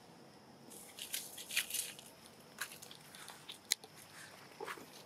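Dry leaf litter crackling and rustling in short irregular bursts as macaques move over it, with one sharp click a little past halfway.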